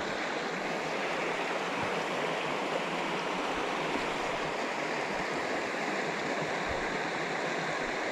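Small mountain creek running steadily, an even rush of flowing water.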